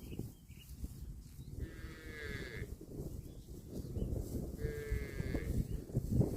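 A cow mooing twice, two calls of about a second each, some three seconds apart, over steady low background noise.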